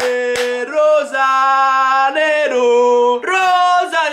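A man singing loudly in long held notes that step up and down between a few pitches, like a drawn-out football chant.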